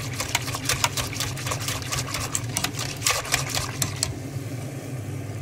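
Wire whisk clicking and rattling against the sides of a stainless steel pot while whisking milk and cacao powder, a fast irregular clatter that stops about four seconds in. A steady low hum runs underneath.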